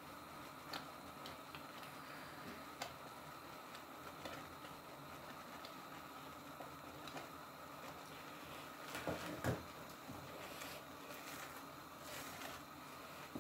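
Faint stirring and scraping of a silicone spatula through thick, simmering mung bean paste in a nonstick frying pan, with soft scattered ticks and a couple of louder knocks about nine seconds in.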